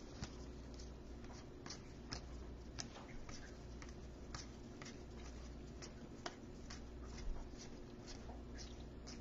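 Scattered faint clicks and rustles of trading cards and a cardboard card box being handled, over a low steady hum.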